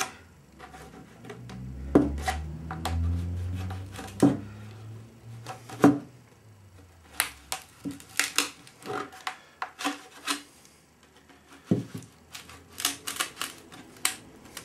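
Plastic wedges being knocked and levered into the seam of a two-piece composite mould to split it open, giving sharp single knocks in the first half and quicker runs of clicks from about seven seconds on.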